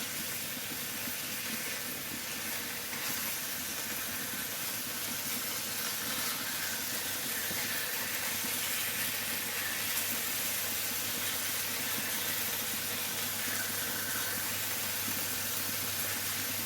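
Pieces of pork liver sizzling steadily in a hot frying pan as they are seared to seal the outside.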